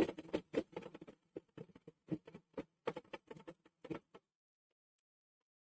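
Domestic sewing machine stitching slowly through cotton blouse fabric: a run of irregular clicks that stops about four seconds in.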